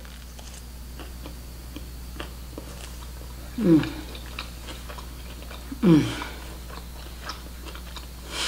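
A person chewing a mouthful of chicken sandwich with small wet mouth clicks. Twice, about three and a half and six seconds in, she makes a short vocal sound that falls in pitch.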